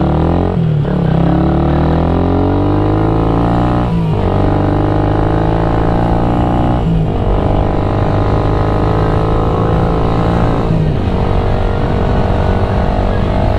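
Motorcycle engine and exhaust pulling through the gears. The pitch climbs and then drops at each of four gear changes a few seconds apart, settling to a steadier note in the higher gears.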